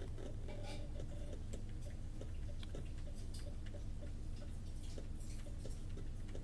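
Faint, irregular clicks of computer keys, a few to the second, over a low steady hum.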